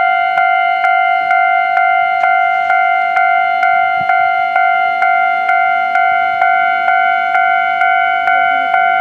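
Japanese railway level-crossing warning bell ringing at an even beat of about two strikes a second, each strike a ringing tone that dies away a little before the next: the crossing is warning that a train is approaching.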